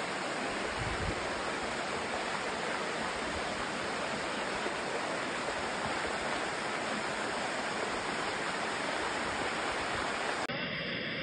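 Muddy floodwater rushing steadily through a street as a dense, even sound of torrential water. About ten and a half seconds in, the rushing abruptly changes in tone.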